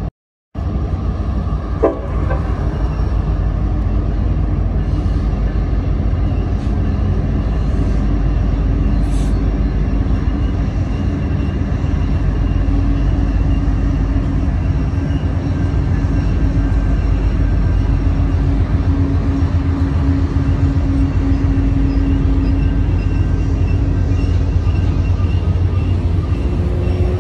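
Diesel train locomotive running steadily nearby: a loud, even low rumble with a steady hum, after a brief click near the start.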